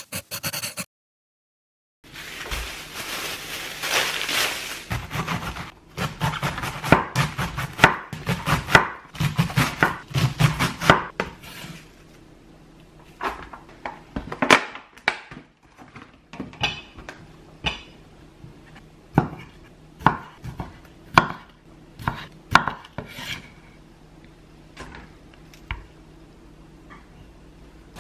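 Kitchen knife chopping on a cutting board: after a few seconds of hissing noise, a quick run of chops for about six seconds, then slower, spaced single cuts.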